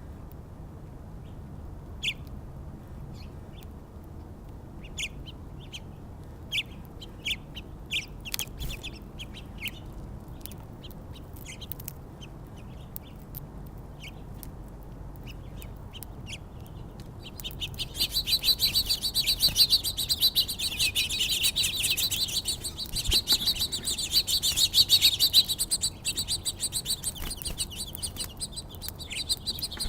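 Small songbirds chirping: scattered single chirps at first, then, about two-thirds of the way in, a dense, continuous high twittering chatter that is louder.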